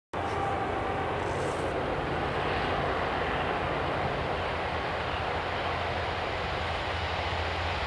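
Steady engine drone of approaching DB Class 66 diesel locomotives, whose two-stroke V12 engines hold a constant low hum while still out of sight down the line.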